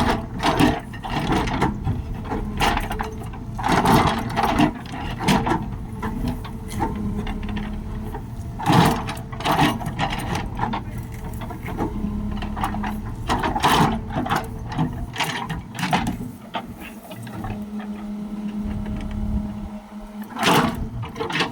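Diesel engine of a JCB 3DX backhoe loader running under load with a steady low rumble, broken every second or few seconds by sharp metallic clanks and knocks.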